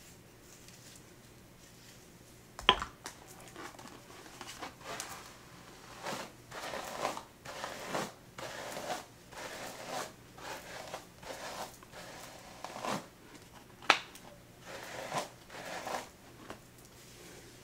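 Hairbrush strokes through hair, brushing it back into a ponytail: a run of scratchy strokes, about two a second. Two sharp clicks stand out, one a few seconds in and another later on.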